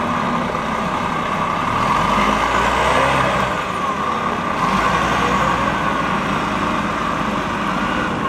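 Heavy diesel engines of a Volvo A40D articulated dump truck and a Volvo L180F wheel loader running steadily as the hauler reverses toward the loader. The low engine sound swells about two seconds in and again around the middle.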